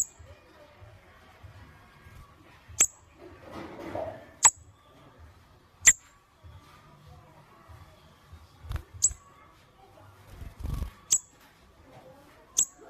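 Pet sunbird giving short, sharp, high-pitched chirps, about seven in all, spaced one to two seconds apart, with a couple of soft low thumps between them.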